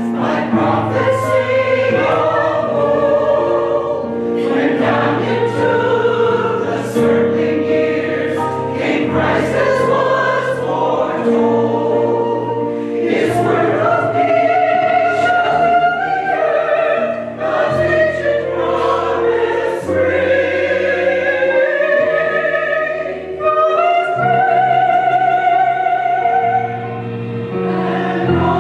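Choir singing a Christmas cantata with instrumental accompaniment: long held notes, some with vibrato, over sustained low notes.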